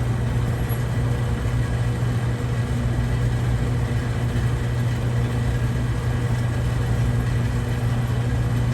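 Steady low mechanical hum with no shots. It is most likely the range machinery running while the target carrier brings the target back.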